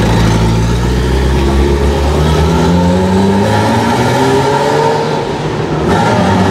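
Ferrari F40's 2.9-litre twin-turbo V8 through a Tubi exhaust, accelerating away with its pitch climbing steadily, then dipping and climbing again near the end. Heard inside a road tunnel.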